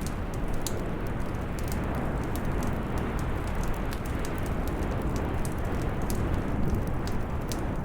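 Fireplace crackling: sharp little snaps and pops a few times a second over a steady, low rumbling hiss.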